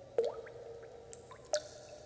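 Water drops dripping: two clear plinks about a second and a half apart, the first louder, each with a short ringing tone after it. A few faint smaller drips fall in between.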